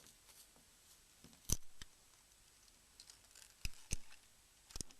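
A handful of small, sharp clicks and taps from handwork on a mobile phone's parts, as a glued flex circuit is peeled off. The loudest click comes about a second and a half in, with a pair more past the middle and a few near the end.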